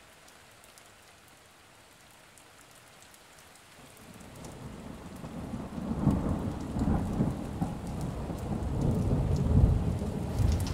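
Rain falling, with a low rumble of thunder that swells in from about four seconds in and rolls on.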